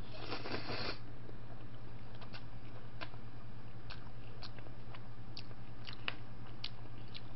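A person slurping in a forkful of spaghetti for about a second, then chewing, with scattered light clicks and smacks.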